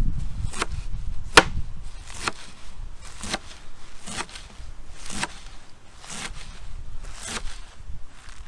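Knife chopping on a cutting board, about one stroke a second. Wind rumbles on the microphone during the first second or so.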